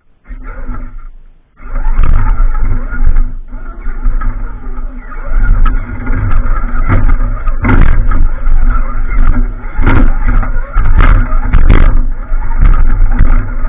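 A small off-road vehicle's motor running under load with a steady drone and whine as it crawls over loose rocks, with repeated sharp knocks and clatter from the wheels and chassis striking stone. The sound starts, breaks off for a moment about a second in, then runs on loud.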